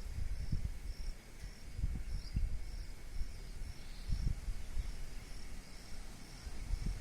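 A high, regular chirping, about two chirps a second, over irregular low rumbles.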